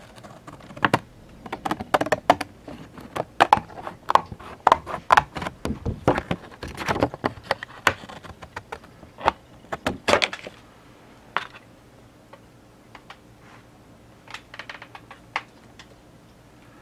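Cardboard Funko Pop box being pulled apart at its glued seams by hand, a dense run of crackles and snaps for about the first ten seconds, then only a few scattered clicks.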